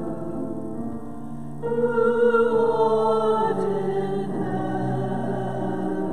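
Church music with a choir singing sustained chords. A louder, higher passage comes in about one and a half seconds in.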